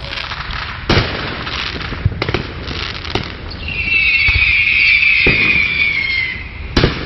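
Fireworks going off: a string of sharp bangs over a crackling rumble, with a high whistle from about halfway that falls slightly in pitch. A last loud bang comes near the end.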